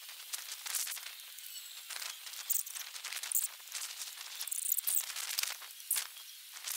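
Irregular rustling and scraping of hands working sisal twine on a bamboo frame, with a few sharp crackles and a click near the end.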